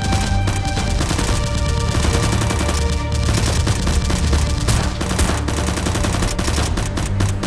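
Rapid, sustained gunfire, dense bursts of shots throughout, over background music with a steady low bass.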